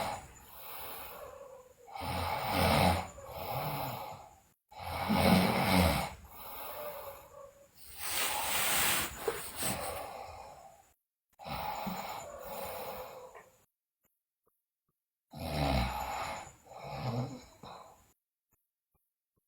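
A sleeping woman snoring: about six long snoring breaths of a few seconds each, with two short silences in the second half.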